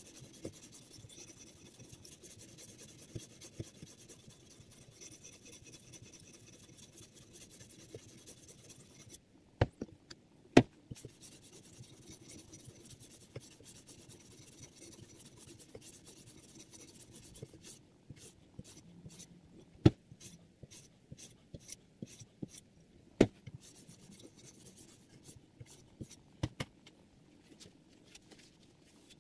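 A sharpening stone on the guide arm of a Hapstone R2 sharpener being stroked along a clamped steel knife edge: a steady scratchy rasping. It is broken by a couple of sharp clacks about ten seconds in, with more clacks and a run of short scrapes and clicks in the last third.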